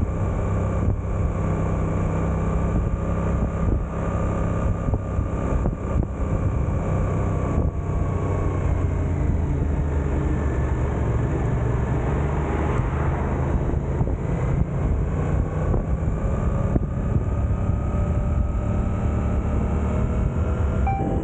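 Suzuki GSX-8S's 776 cc parallel-twin engine running at low road speed. Its pitch falls as the bike slows midway, then rises steadily as it accelerates again near the end.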